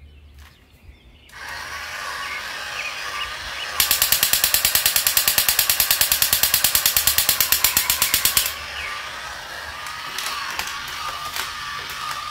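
Battery-powered crawling Spider-Man soldier toy running: its motor and gears whirring with a wavering electronic tone, starting about a second in. From about four seconds in it gives a rapid electronic machine-gun sound effect, about ten shots a second, for nearly five seconds.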